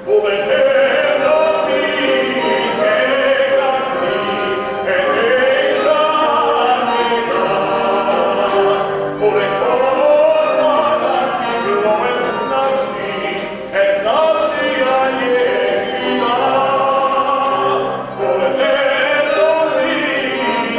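Several voices singing a song together, in phrases with short breaks between them.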